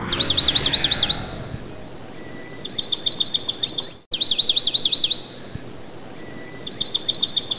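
Songbird calling: four runs of quick, high, sweeping notes, about eight a second and each run lasting about a second, over a light outdoor hiss.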